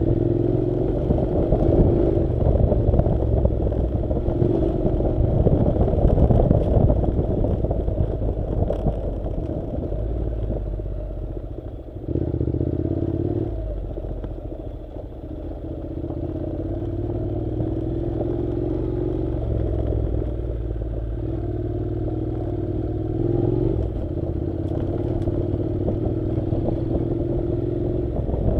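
Honda NC700's 670 cc parallel-twin engine running at low revs, its pitch rising and falling with the throttle, briefly easing off about twelve seconds in and again a few seconds later. Clattering and scraping from the bike riding over a rough dirt road run along with it.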